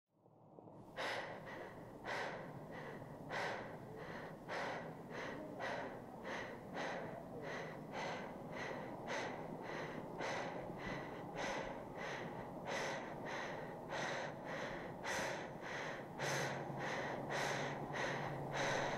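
A person breathing quickly and heavily in short, even breaths, a little under two a second. A low steady hum joins in near the end.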